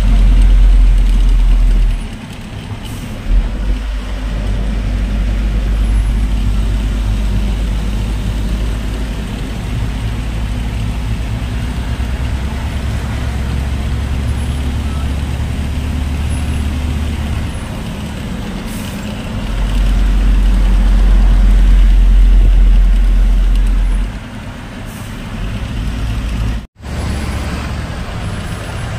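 Truck on the move, heard from its cab: a steady low engine and road rumble that swells louder twice and cuts out for an instant near the end.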